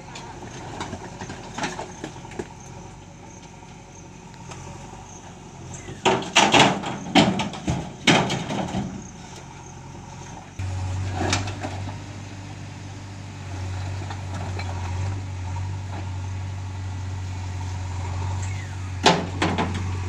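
Diesel engine of a JCB 3DX backhoe loader running steadily, with a cluster of loud clanks and thuds about six to nine seconds in as the bucket works rocks and soil. About ten and a half seconds in, the engine drone suddenly steps up louder and stays up, with more clanks near the end as stones go into the dump truck's steel bed.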